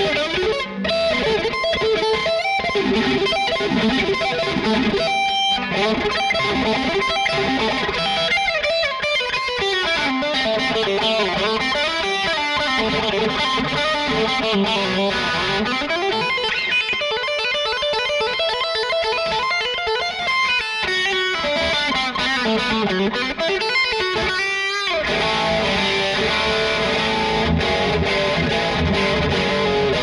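Ibanez GRGR121EX electric guitar with humbucking pickups, played with a distorted tone: fast lead runs climbing and falling in pitch, with sustained notes between them.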